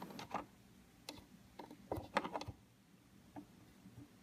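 Fingers pressing and spreading Play-Doh into a plastic mold, giving scattered light taps and clicks on the plastic, most of them bunched about two seconds in.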